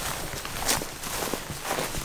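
Footsteps of people walking on foot, a few uneven steps.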